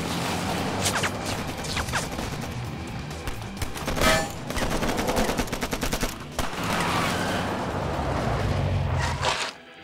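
Rapid automatic gunfire in long, dense bursts, as in a film shootout. It stops abruptly near the end.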